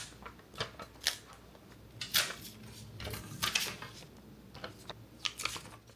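Irregular small clicks, taps and scrapes of stickers being peeled off their sheet and pressed onto an iPad with a plastic Lego brick separator, the loudest about two seconds in.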